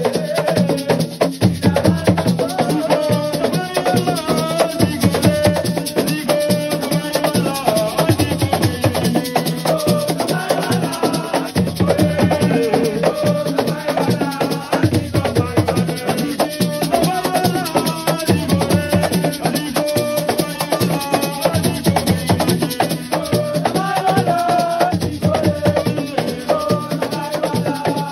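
Assiko music: drums and shaken rattles keep a steady, dense beat, with a melodic line running over it.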